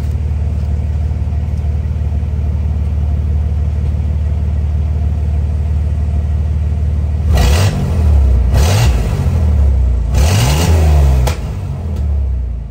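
1992 Chevy S10's engine heard through a Flowmaster muffler with the catalytic converter cut off. It idles steadily, then is revved in three quick blips from about seven seconds in before settling back to idle.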